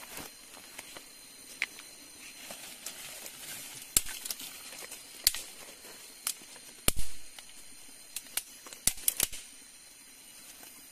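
Irregular sharp clicks and snaps, about a dozen, one heavier knock about seven seconds in, over a faint steady background hiss.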